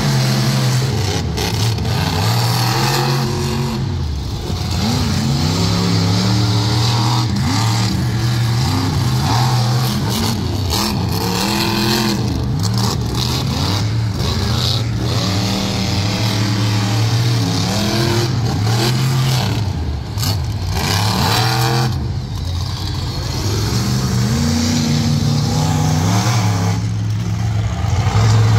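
Monster truck engines revving hard through a race, their pitch climbing and dropping again and again as the drivers get on and off the throttle.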